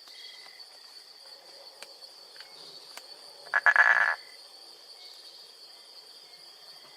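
A frog croaking once, a short pulsed call lasting about half a second, a little past the middle. A faint, steady, high-pitched background sound runs throughout.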